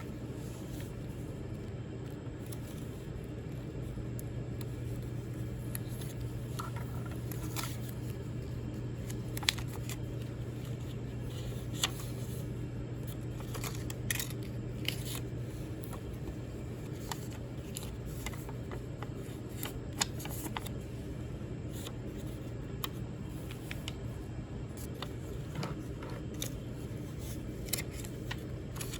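A steady low hum, like a fan or air conditioner, with scattered light clicks and taps of small objects being handled.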